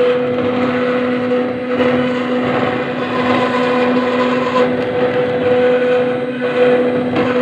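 CNC router engraving granite: the spindle motor's steady hum over the gritty grinding noise of the bit cutting the stone.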